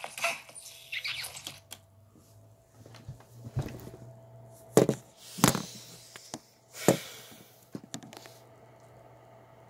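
Phone being picked up and handled: four or so knocks and bumps with rubbing and rustling against the microphone, over a faint steady hum.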